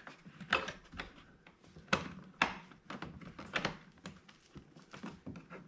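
Irregular clicks and knocks, one or two a second, of door trim parts being pressed and fitted back onto a car door.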